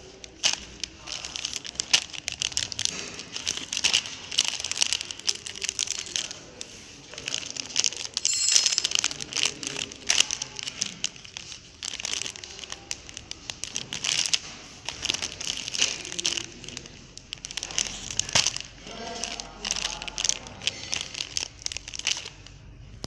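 Clear plastic wrapping film crinkling and crackling as freshly flow-wrapped packs are picked up and handled, a dense, irregular rustle of small crackles.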